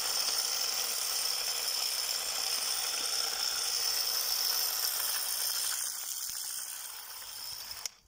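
Handheld broadcast spreader running, its spinner flinging granular autumn lawn fertiliser: a steady rattle of granules and mechanism that fades after about six seconds and cuts off just before the end.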